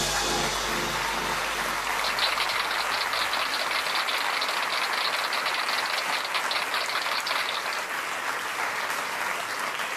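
Studio audience applauding at the end of a live song, with a low note from the band dying away in the first few seconds. The clapping grows denser after about two seconds.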